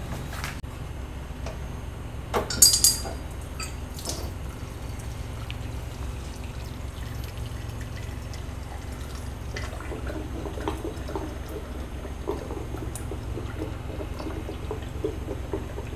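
Hot cleaning water draining from the rear drain outlet of an Enviro Aquatic water dispenser and trickling into a glass jug, with a few sharp knocks of handling about three seconds in.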